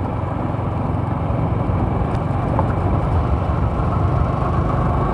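Motorcycle ridden at a steady speed: a steady low engine hum with road noise.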